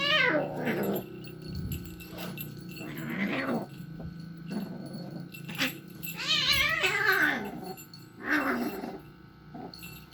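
Two cats growling and yowling at each other before a fight: four long, wavering cries that slide up and down in pitch, with low growling between them.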